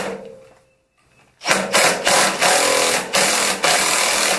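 Cordless impact driver with a socket extension hammering at a tightly torqued bolt on a motorcycle's seat-mounting bracket to break it loose. A few short bursts end just after the start, and after a brief pause the tool runs in one long continuous burst from about a second and a half in.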